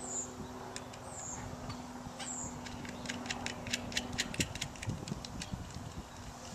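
Small sharp clicks and ticks of wire leads and metal terminals being handled and fastened on a hand-held spark-gap electrode block, coming thickest in the second half, over a faint steady hum that stops about two thirds of the way through.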